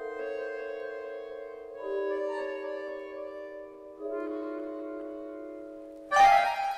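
Accordion holding sustained chords that shift twice. About six seconds in, a sudden loud percussion strike cuts in and rings on.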